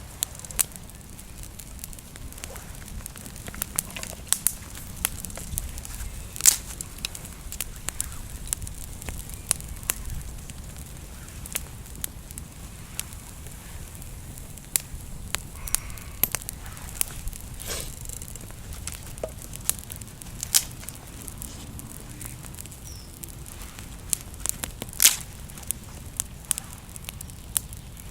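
Freshly lit campfire of natural kindling crackling, with irregular sharp pops and snaps, the loudest about six seconds in and again near twenty-five seconds.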